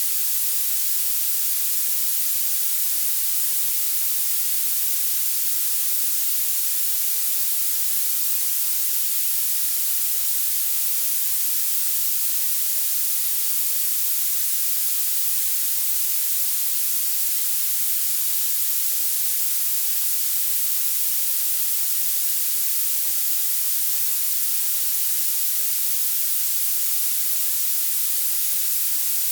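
Violet noise: a steady, unbroken synthetic hiss weighted heavily toward the highest frequencies, with almost nothing in the bass.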